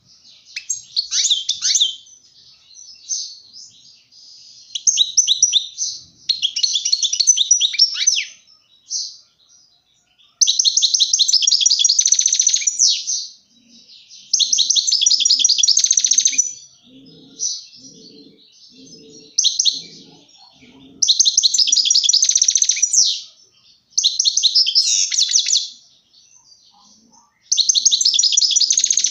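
European goldfinch singing: repeated phrases of rapid, high twittering trills, each lasting one to three seconds, with short pauses between.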